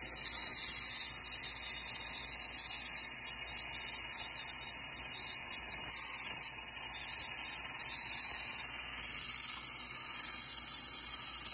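Hand-held brazing torch flame hissing steadily, its flame held on a saw tooth to braze on a new carbide tip.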